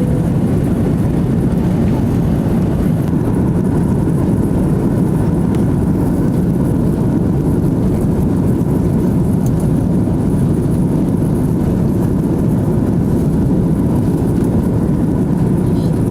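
Steady low roar of an Airbus A330-300 airliner heard from inside the cabin: jet engines and rushing airflow, unchanging throughout.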